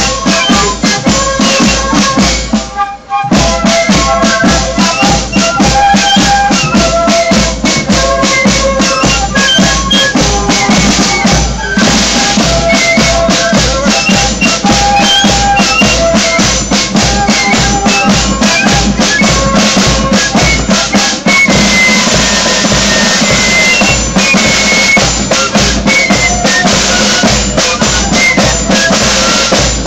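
Marching fife-and-drum band playing a march: several flutes carry the tune in parts over snare drums and a steady bass drum beat, with a brief drop in the sound about three seconds in.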